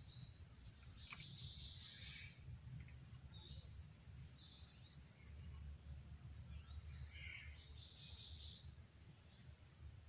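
Steady high-pitched drone of insects calling in mangrove scrub, with faint chirps about a second in and again around seven seconds, over a low rumble.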